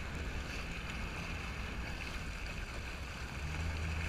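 Jet ski engine running at low speed over the hiss of water and spray. The engine note grows louder about three and a half seconds in.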